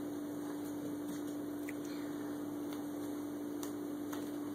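A steady electrical hum on one unchanging pitch, with a few faint clicks.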